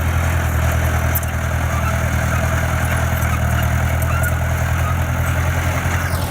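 Heavy-equipment diesel engine running steadily at a constant low hum, with no revving.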